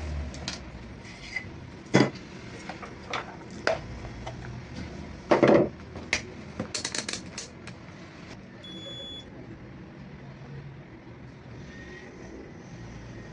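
Scattered sharp clicks and knocks of hard objects being handled, some in quick clusters, over the first seven seconds or so, then only a faint steady hum.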